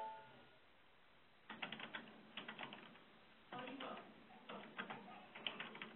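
Computer keyboard typing in several short bursts of quick clicks, faint and thin as heard over a web-conference audio line. At the very start an electronic chime dies away.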